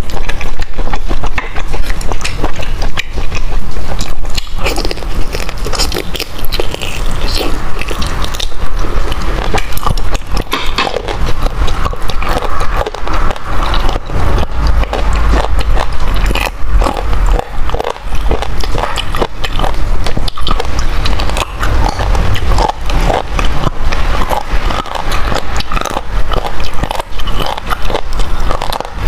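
Close-miked eating: biting, chewing and pulling apart braised meat on the bone, a dense run of loud clicks and crackles throughout.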